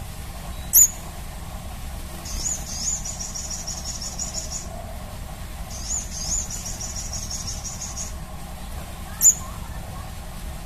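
Crimson sunbird song: a sharp, very high note about a second in, then two rapid high-pitched trills of about two seconds each, and another sharp note near the end.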